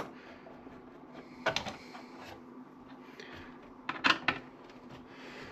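Light clicks and knocks from handling parts inside a desktop computer case: a couple about one and a half seconds in and a tighter cluster about four seconds in, over a faint steady hum.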